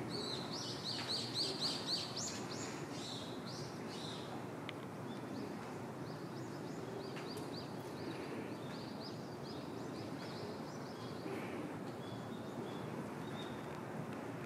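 Small birds chirping in quick runs of short high notes, loudest in the first couple of seconds and again from about five to ten seconds in, over a steady outdoor background hum.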